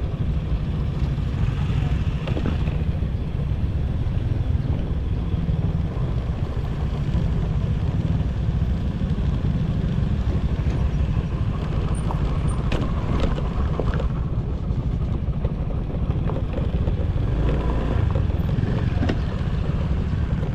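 A vehicle on the move: a steady low rumble of engine and wind buffeting the microphone, with road and wind hiss above it.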